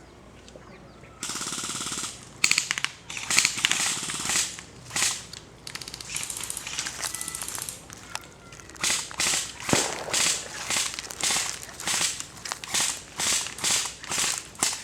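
Airsoft guns firing. A rapid full-auto burst starts about a second in, followed by more bursts and rattling strings of shots, then a steady run of single shots about two a second near the end.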